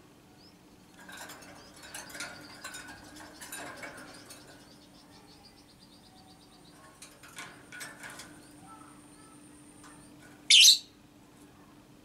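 Caged Fischer's lovebird: scattered short chirps and clicks of movement, then one loud, shrill screech about ten and a half seconds in.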